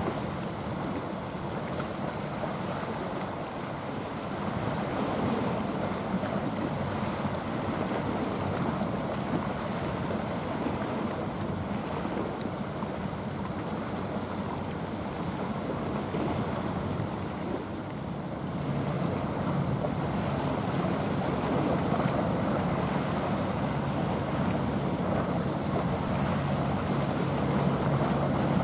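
A large container ship passing close: a low, steady engine drone that grows stronger about two-thirds of the way through, under a continuous rush of water from its bow wave and wind buffeting the microphone.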